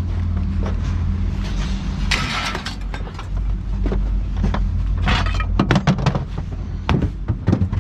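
Scrap metal being thrown and dragged off a truck, with scattered clanks, knocks and a couple of short scraping bursts, over a steady low engine hum.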